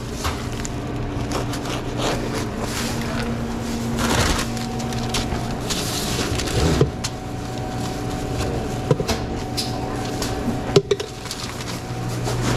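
Handling noise at a sandwich prep counter: sandwich paper rustling and items being set down, with a few sharp knocks (the loudest a little over halfway), over a steady machine hum.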